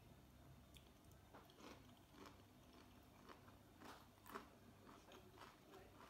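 Faint crunching and chewing as a fresh Vietnamese spring roll in rice paper, filled with lettuce, cucumber and carrot, is bitten into and eaten. Short irregular crunches start about a second in.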